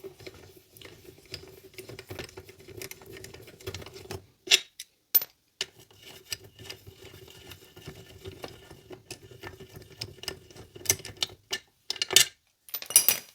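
Hand ratchet with a 12mm socket clicking rapidly as the brake caliper bolts are backed out, pausing twice, with a few louder metal clinks near the end.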